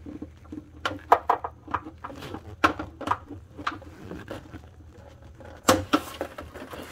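Irregular light clicks and taps of hands working among plastic trim and wiring in a car's wheel well, with one louder knock near the end.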